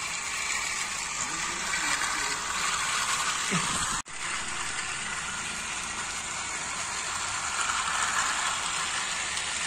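Battery-powered toy Thomas locomotive running on plastic track with wagons in tow: a steady whir and rattle of its small geared motor and wheels, with a brief dropout about four seconds in.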